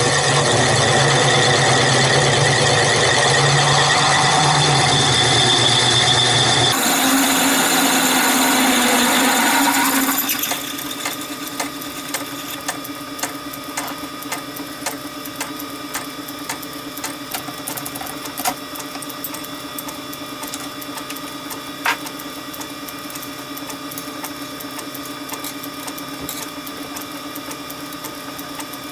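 Metal lathe running, with a twist drill in the tailstock chuck cutting into a steel sheet-metal disc held in the four-jaw chuck to open out its centre hole. The drilling is loud for about the first ten seconds, then stops, and the lathe runs on more quietly with a steady hum and faint scattered ticks.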